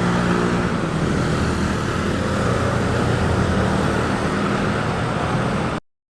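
A bus engine running loud and close over steady road noise, cutting off abruptly near the end.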